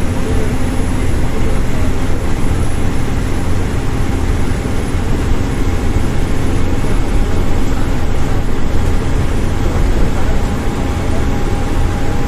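Steady engine and tyre noise heard inside a moving bus at road speed, heaviest in the low end and unbroken throughout.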